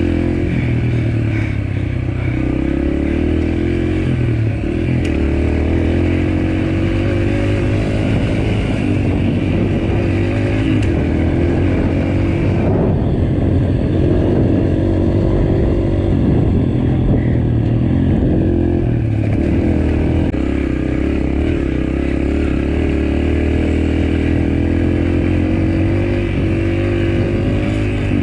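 Dirt bike engine running hard and revving up and down under throttle, continuous, easing off for several seconds about halfway through.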